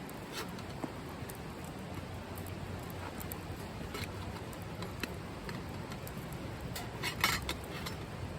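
Wood fire burning in a wood-fired grill, crackling with scattered small pops over a steady low rumble, and a short burst of louder crackles about seven seconds in.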